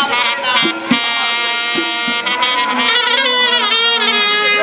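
Live jatra stage music: a wind instrument plays a wavering melody and holds one long note about a second in.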